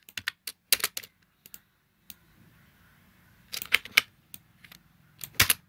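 Computer mouse and keyboard clicks: a few quick clicks in the first second, more around three and a half seconds in and near the end, over a faint low hum.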